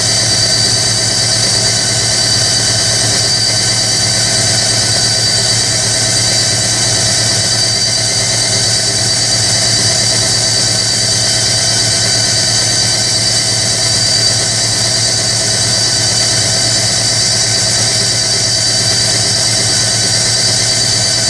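Hoover Electronic A3172 washing machine spinning at a steady speed between rinses, its motor giving a steady high-pitched whine over a low hum.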